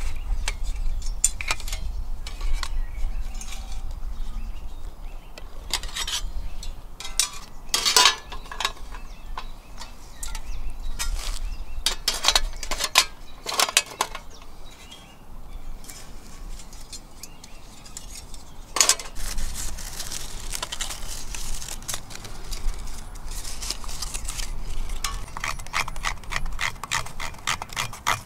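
Stainless-steel panels of a Petromax folding firebox being unpacked and fitted together: scattered metal clinks and clacks, with a few sharper knocks. Near the end, a fast run of scraping strokes begins.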